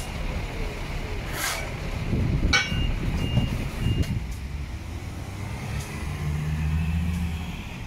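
Heavy diesel truck rumbling with a reversing beeper giving three short, evenly spaced beeps about two and a half seconds in. A passing vehicle's engine drones low near the end.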